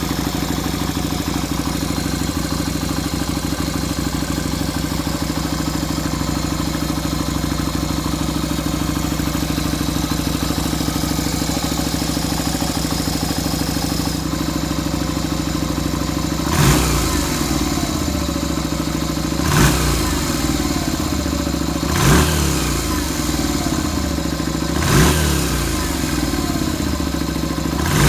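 Yamaha XV250 Virago's V-twin engine idling steadily through Daytona drag pipes. A little over halfway through, the throttle is blipped about five times, every two to three seconds, each rev dropping back to idle.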